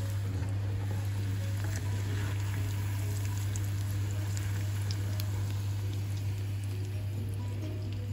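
Breaded onion rings deep-frying in hot oil: a steady sizzle and bubbling with many small crackles, over a low steady hum.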